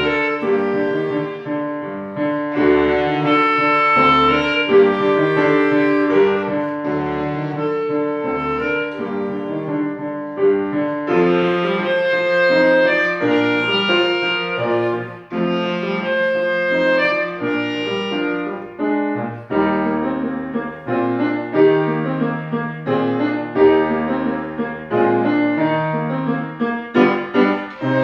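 A woodwind solo playing a classical melody with piano accompaniment, held singing notes over moving piano chords.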